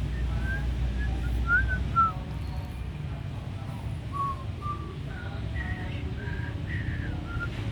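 A string of short, high whistled chirps, some sliding up or down in pitch, scattered irregularly over a steady low rumble.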